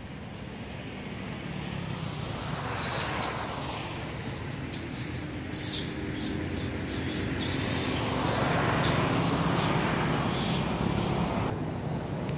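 Motor traffic passing: engine and tyre noise swells and fades twice, loudest about three and nine seconds in, over a low hum. A high, pulsing buzz runs through most of it and stops shortly before the end.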